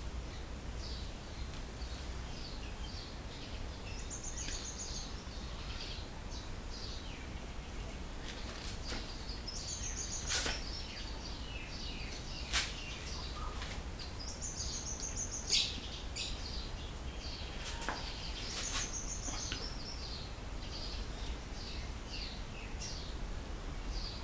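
Birds chirping with repeated high trills over a steady low hum, with three sharp clicks about ten, twelve and fifteen seconds in.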